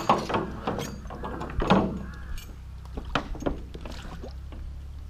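Iron rings on fishermen's long poles clattering as the poles are worked in the water, a run of irregular metal knocks, the loudest right at the start. The rattle is meant to scare fish.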